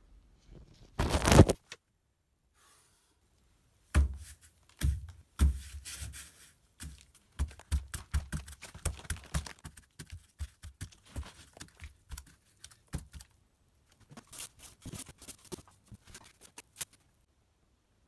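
Paintbrush slapping and scraping paint onto a canvas in irregular strokes and thumps, after a loud rustling burst about a second in.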